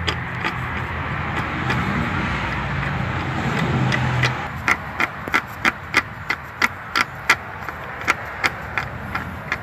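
A steady rushing noise, then from about four and a half seconds in a run of sharp clicks, about two or three a second, as a hydraulic bottle jack is pumped up under the truck's front suspension to take the load off the lower ball joint.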